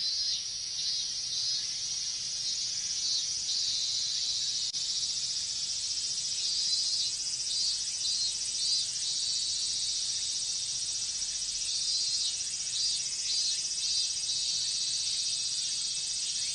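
Chorus of cicadas, including robust cicadas (minminzemi), shrilling continuously at high pitch. Several stretches carry a repeated pulsing phrase over the steady drone.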